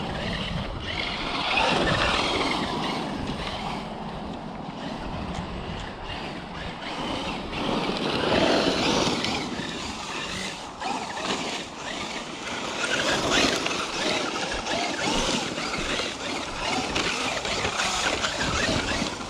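Electric RC truck driving on dirt: motor and drivetrain whine and tyre noise surge and fade several times with the throttle.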